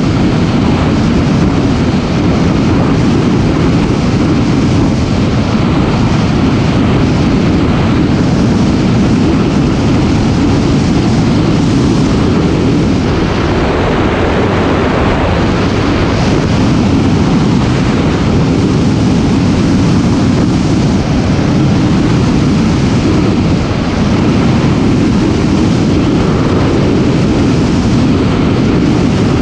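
Loud, steady rush of wind over the microphone of a camera on a moving motorcycle, with no change for the whole stretch.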